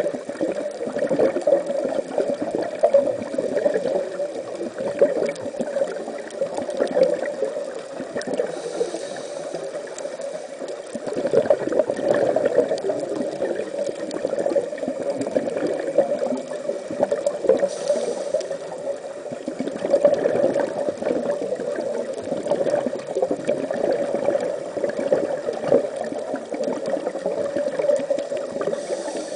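Underwater reef ambience picked up by a diver's camera: steady gurgling, crackling water noise, with a short high hiss about every nine seconds.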